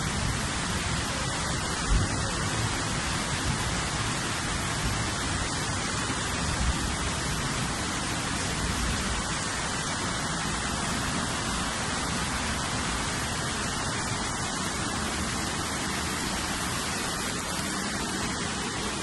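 Steady hiss of heavy rain and rushing floodwater, with one brief low thump about two seconds in.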